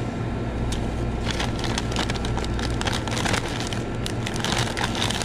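Brown paper takeout bags being handled and opened, the paper crinkling and rustling in many quick crackles, over a steady low hum.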